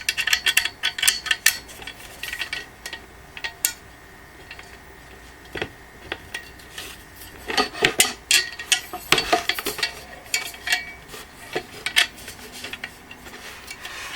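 Metal clinking, tapping and scraping as a screw and the stand's steel support bracket are handled and worked against each other to line the screw up with its hole. The clicks come at irregular intervals, with a busier stretch a little past halfway.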